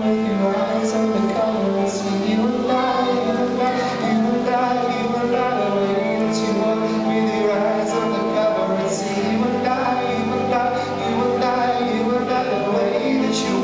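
Live band music with singing, held notes sounding throughout and occasional brief bright high accents.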